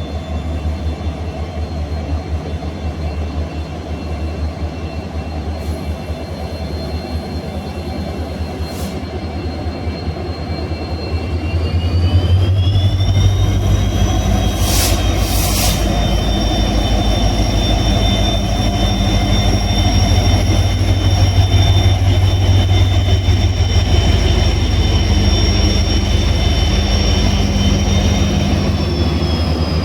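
Train locomotive running with a steady low rumble. About twelve seconds in it grows louder and a high whine rises in pitch and holds, easing down again near the end, as the locomotive powers up to pull the train out. Two brief hiss-like bursts come shortly after the rise.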